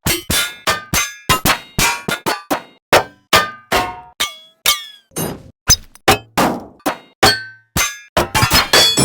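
High-pitched metal banging: a string of separate clangs, each ringing and dying away, about two or three a second, with one ring sliding down in pitch midway. Near the end the strikes come faster and run together.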